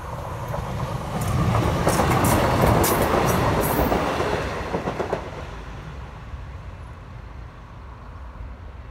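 Diesel multiple-unit passenger train passing over a level crossing. The sound swells to a peak about two to three seconds in, then fades as the train moves away, with a run of sharp wheel clicks over the rail joints and crossing at its loudest.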